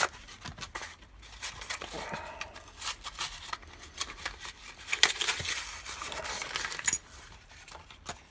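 Packaging being torn open and crinkled by hand to free a padlock, with irregular rustling and scattered sharp clicks and snaps, the loudest about five and seven seconds in.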